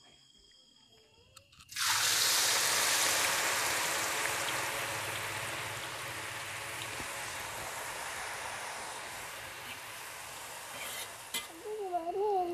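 Food sizzling in hot oil: a hiss that starts suddenly, as if just dropped into the pan, then slowly dies down as it fries.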